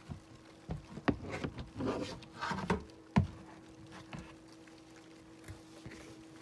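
Rustling, scraping and sharp knocks of handling, bunched in the first half with the loudest knock about three seconds in, then a few faint ticks, over a faint steady hum.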